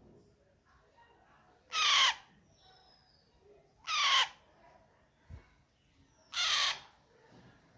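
Alexandrine parrot chick giving three loud, harsh squawks about two seconds apart, each falling in pitch.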